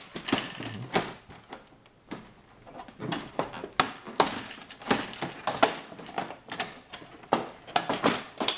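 Plastic retaining clips of an LED TV's back cover snapping loose as the cover is pried off: an irregular run of sharp clicks and knocks.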